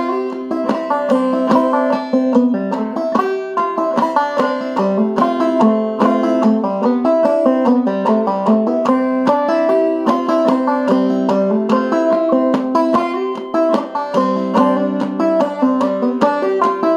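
Clawhammer banjo played solo, a steady, even stream of plucked notes in double C tuning with the fifth string lowered to E (eCGCD).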